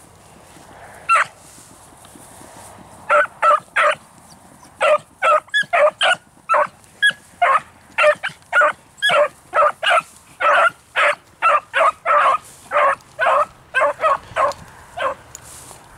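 Beagles barking on a scent trail: one bark about a second in, then a steady run of short, loud barks, two to three a second, stopping near the end.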